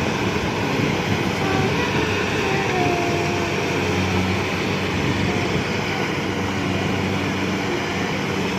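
Rice combine harvester running steadily, its engine giving a low, even hum under a broad mechanical rumble.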